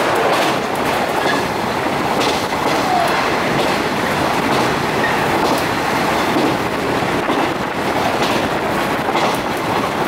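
Running noise of a JR 415-series electric multiple unit heard from inside the carriage: a steady rumble of wheels on rail, with occasional clicks as the wheels pass over rail joints.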